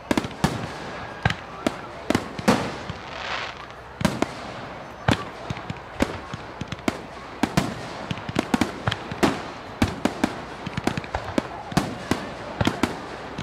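Aerial fireworks display: an irregular run of sharp bangs from bursting shells, coming faster and more closely packed in the second half.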